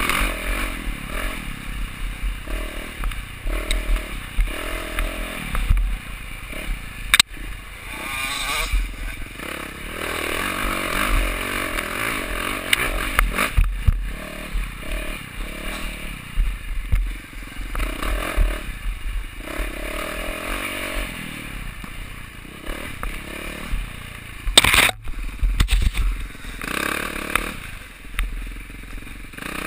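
Enduro motorcycle engine running on a rough forest trail, rising and falling with the throttle, with knocks and clatter from the bike over bumps. There is a sharp crack about seven seconds in, and a loud burst of clatter near the end.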